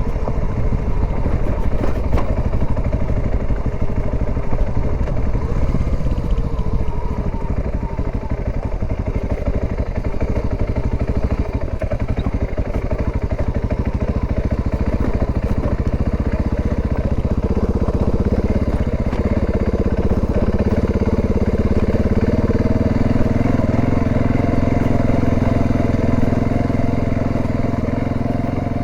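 Dual-sport motorcycle engine running while riding, steady, with the engine pitch drifting a little up and down and then settling to an even note about two-thirds of the way through.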